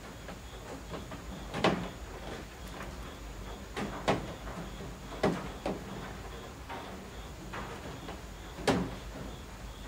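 Steady rain with heavy drops falling from the roof eaves, landing as sharp, irregular knocks about six times, the loudest near the start and near the end.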